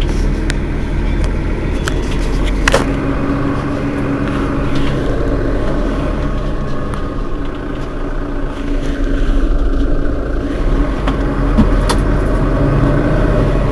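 Mercedes-Benz Citaro city bus's diesel engine running steadily, with a couple of sharp clicks.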